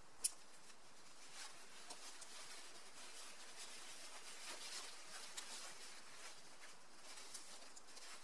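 Faint rustling of nylon hammock fabric being gathered and stuffed into its bag, with a few soft scratchy clicks.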